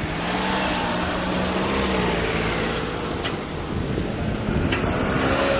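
E235 series electric train running by, its traction motors giving a steady whine over rolling noise that swells in the first second. A second, higher-pitched whine comes in near the end.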